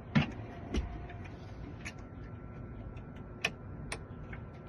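A handful of sharp, irregularly spaced clicks, the loudest about a quarter second in, from a locksmith handling a key and tools while setting up to cut a new key.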